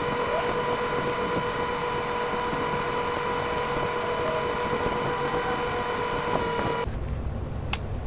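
Fast-forwarded background noise from a refrigeration test bench: a steady hiss with two steady high-pitched hum tones. About a second before the end it cuts off abruptly to a quieter, lower hum.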